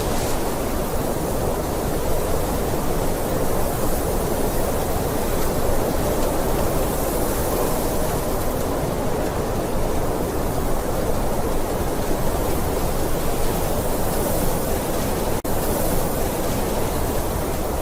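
Blizzard wind blowing steadily, a dense even rush of noise with no distinct events, briefly cutting out for an instant about fifteen seconds in.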